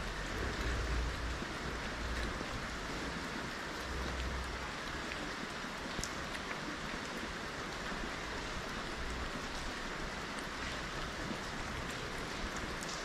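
Steady hiss of light rain falling on a wet street, with a few faint ticks from a calico kitten eating wet cat food from a plastic tray. A low rumble comes and goes underneath.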